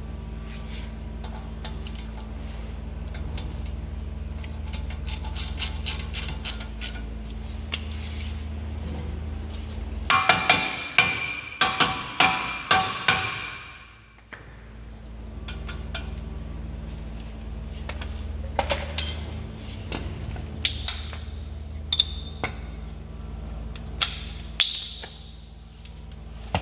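Metal clinks and taps from hand tools and brake parts being handled and fitted, with a burst of loud, ringing metallic clinks about ten seconds in, over a steady low hum.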